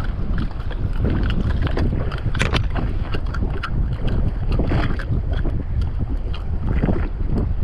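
Wind buffeting the microphone in a strong breeze, with irregular sharp splashes and knocks of choppy water against the jet ski.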